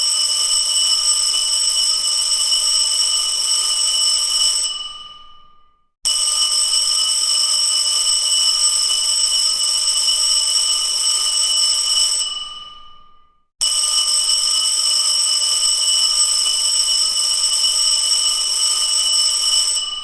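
School bell ringing loudly in long continuous rings. The first ring stops about five seconds in, then two more follow, each lasting about six seconds with a short pause between them, and each ring ends in a brief fading tail.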